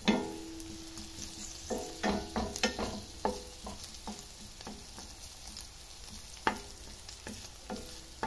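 Garlic and onion sautéing in oil in a stainless steel pan over lowered heat, with a faint steady sizzle. A wooden spoon stirs and knocks irregularly against the pan, and the pan rings briefly after each knock; the loudest knock comes right at the start.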